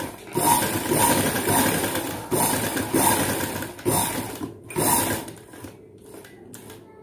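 Tailoring sewing machine stitching a folded cloth hem, running in spurts of one to two seconds with brief stops. After about five seconds it goes quieter, leaving only a few short bursts of stitches.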